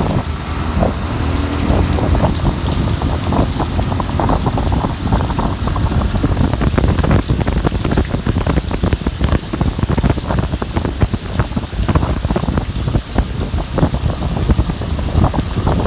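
Rain falling hard, with many close drops crackling, while wind rumbles on the microphone.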